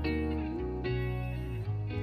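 Background music led by plucked guitar, with notes changing every half second or so.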